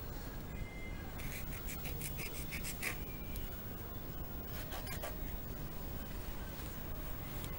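A small knife sawing and cutting through the suede upper of an Adidas Spezial sneaker: a quick run of short rasping strokes about a second in, and a few more around five seconds.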